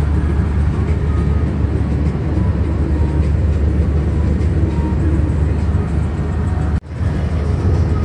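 Steady low road and engine rumble heard from inside a vehicle travelling along a highway, briefly cutting out near the end.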